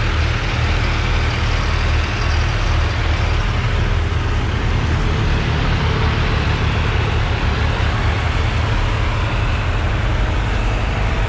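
Several diesel tractor engines (Mahindra, New Holland 3630, Powertrac and Kubota) running together in a steady, even hum as the tractors pull slowly along side by side in third gear.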